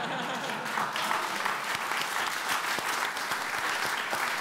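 Audience and panel applauding: steady clapping from many hands that builds up just before and holds at a constant level.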